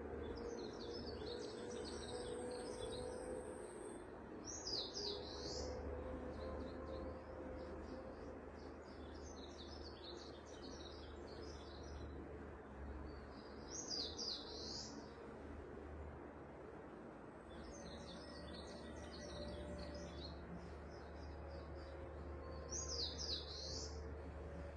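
Bird song: short high chirping phrases repeating every few seconds, some scratchy and clustered, others a single clearer sweeping note, over a faint steady low hum.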